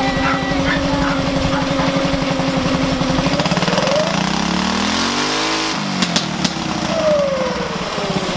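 Go-kart engine idling steadily, then revved once: the pitch climbs for about two seconds, three short clicks sound at the top, and it drops back to idle near the end.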